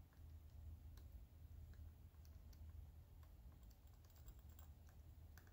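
Near silence: low room hum with faint, scattered small clicks.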